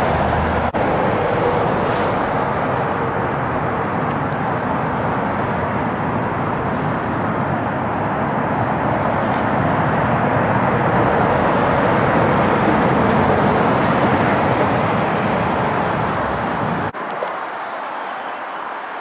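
Steady roar of freeway traffic. Near the end the low rumble drops away abruptly and the roar becomes lighter.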